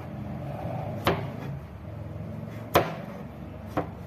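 Kitchen knife chopping peeled squash, striking the cutting board three times about a second apart, the second chop the loudest, over a steady low hum.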